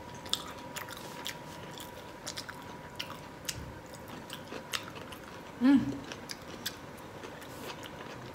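Close-up eating sounds: chewing shell-on shrimp and nacho chips, with scattered small crunches and mouth clicks. A short hum from the eater's voice about six seconds in.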